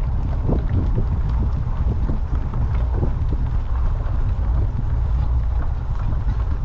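Wind blowing across the microphone over the rumble of bicycle tyres rolling on a wet gravel road, with scattered clicks of stones.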